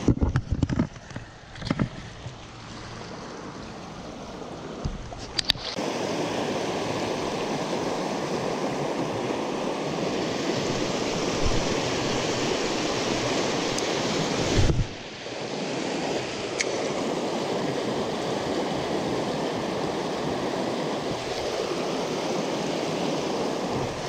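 Creek rapids rushing over rocks: a steady white-water hiss that gets louder about six seconds in. Before that, wind buffets the microphone and there are a few knocks of handling.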